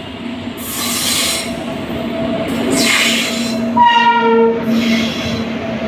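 Passenger train hauled by a WAG-9 electric locomotive rolling in along the platform as it slows: a steady hum with several bursts of high hissing, and a short horn blast about four seconds in.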